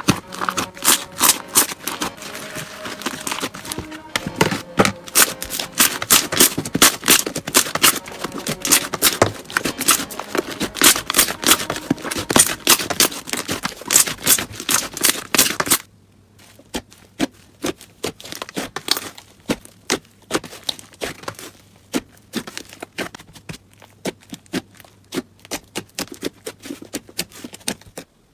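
Slime being squeezed and pressed by hand, making rapid sticky pops and clicks. The popping is dense and loud at first, then becomes quieter and sparser after a cut about halfway through, over a faint low hum.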